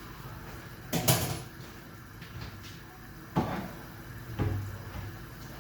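Kitchen handling noises: a sharp knock about a second in, another about three and a half seconds in, and a duller thump shortly after, like a cupboard door and items being set down on the counter.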